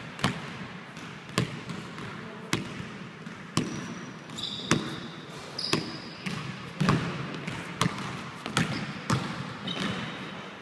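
Basketball dribbled on a hardwood gym floor, bouncing about once a second with short echoing thuds. A few brief sneaker squeaks come in the middle and near the end.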